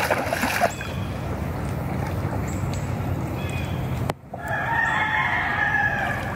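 Poultry calling: a short burst of calls at the start, then one long drawn-out call lasting almost two seconds, over a steady low rumble.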